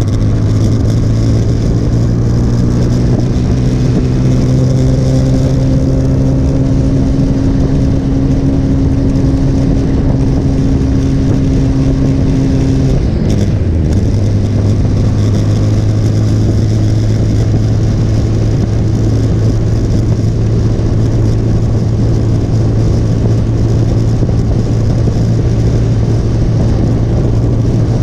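Motorcycle engine running at road speed, heard from on the bike over a steady rush of wind. Its pitch creeps up, drops sharply about halfway through, then holds steady.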